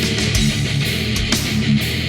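Heavy rock music: distorted electric guitar and bass over a steady, hard-hitting drum beat.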